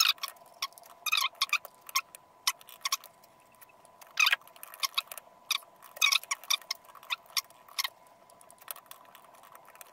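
Laptop keyboard typing: irregular runs of keystroke clicks with short pauses between them, over a faint steady hum.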